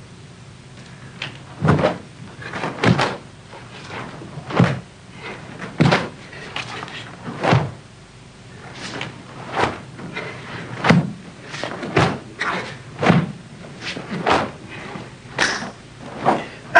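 Sharp snaps and thuds from a karate kata being performed: strikes and steps of Goju-ryu Shisochin kata, roughly one a second, coming a little faster in the second half.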